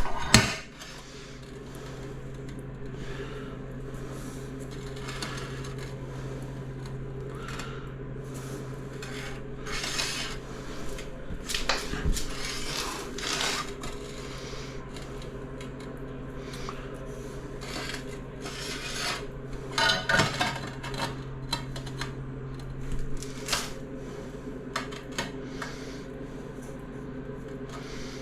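Ceramic tiles and hand tools being handled on a work surface: scattered short clinks, knocks and scraping rubs, over a steady low hum. No grinder runs.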